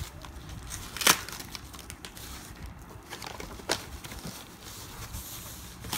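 Foam packing wrap rustling and crinkling as it is pulled off a cardboard product box, with two sharp crackles, the louder about a second in and another a little before the four-second mark.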